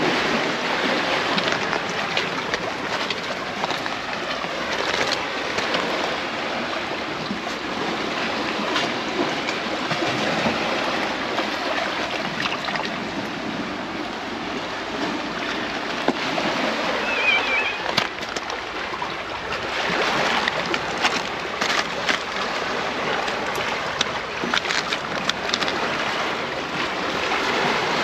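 Sea waves washing over a rocky, pebbly shore: a steady rush of surf and sloshing water. Scattered sharp clicks and knocks come in the second half.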